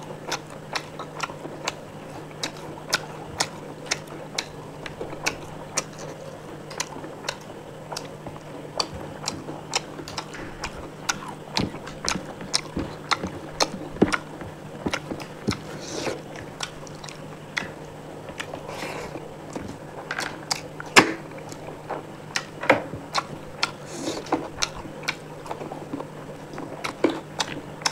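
A person chewing and biting food, with frequent sharp, irregular mouth clicks, roughly two a second, over a steady low hum.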